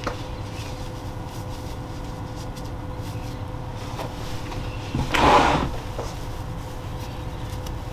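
Steady low background hum with a faint constant tone, and one brief rustle of handling about five seconds in.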